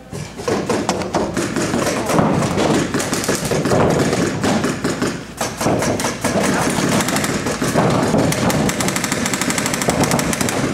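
Paintball markers firing Reball rubber balls in rapid strings of shots, many a second, making a dense clatter.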